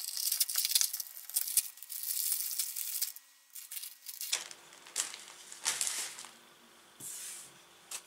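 Thin clear plastic wrapper on a pack of cards, crinkling and tearing as it is pulled open and the cards are slid out. It is dense for about the first three seconds, then settles into softer, scattered rustles.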